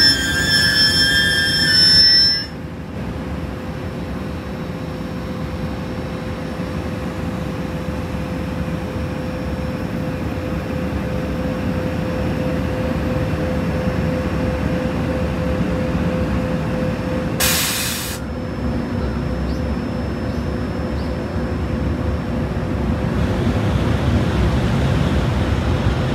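EH500 electric locomotive and its freight train: several high whining tones cut off abruptly about two seconds in. A steady rushing noise with a faint hum follows, broken by a short sharp hiss about seventeen seconds in.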